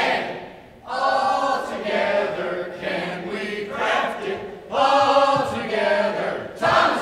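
A group of people singing together in unison, in several held phrases with short breaks between.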